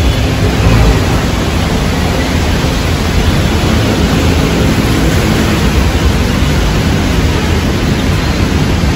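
Steady, loud rushing noise of rain and wind hitting the microphone, with a deep low rumble and no distinct events.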